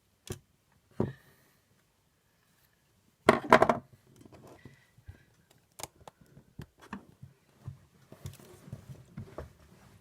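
Handling noise of small objects on a desk: two sharp clicks near the start, a louder clatter of several knocks about three seconds in, then light rustling and scattered small clicks.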